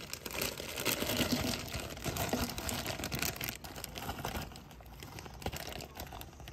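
Plastic bag crinkling and rustling as frozen fruit chunks are shaken out of it into a plastic blender pitcher, with scattered clicks of pieces dropping in. It is busiest at first and thins out after about four seconds.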